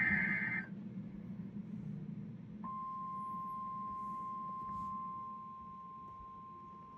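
NOAA Weather Radio alert signalling: a burst of screeching SAME digital header data ends just under a second in. After about two seconds of faint radio hum, the steady single-pitch 1050 Hz warning alarm tone comes on and holds, the signal that an urgent weather warning follows.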